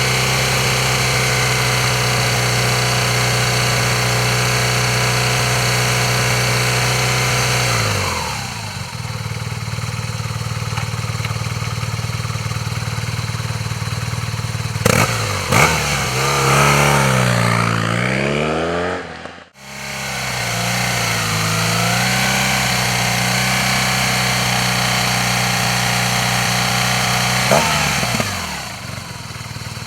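Air-cooled BMW R 1200 GS boxer twin running on the stand, held at steady revs and then let back to idle about eight seconds in. After that comes a series of throttle blips, a sudden break, then more revving and another steady hold that falls back near the end.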